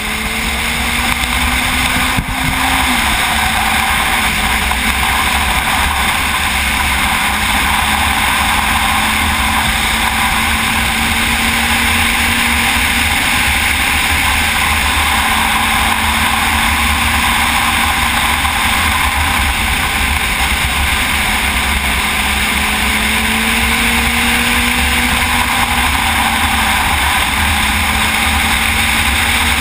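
Sport motorcycle engine running at speed under heavy wind rush on the onboard microphone. The engine note rises slowly, drops back sharply with a click about two seconds in, and drops again near the end.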